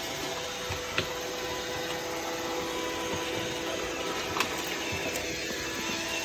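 iRobot Roomba robot vacuum running as it looks for its charging dock, a steady hum with a thin whine, with light knocks about a second in and again past four seconds.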